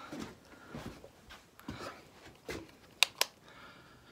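Soft scuffs and shuffling of a person moving across an attic floor with a phone in hand, a few muffled steps under a second apart, then two sharp clicks close together about three seconds in.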